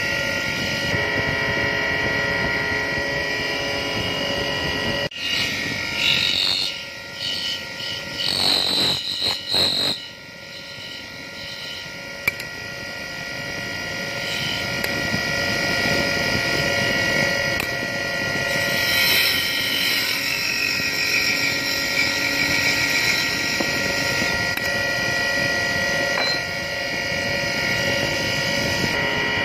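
Wood lathe running, a steady machine hum with several high held tones, as a flat metal form tool scrapes the profile into the spinning wooden spindle. The sound turns uneven and choppy between about five and ten seconds in.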